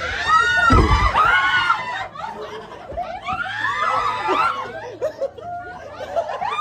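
Several people shrieking and laughing in fright, with high, rising-and-falling cries early on and again in the middle, and short bursts of laughter near the end. A low thump sounds about a second in.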